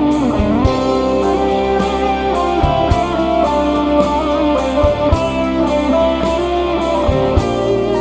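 Live band music led by a Telecaster-style electric guitar, picked, with notes that bend and glide in pitch over a steady low beat.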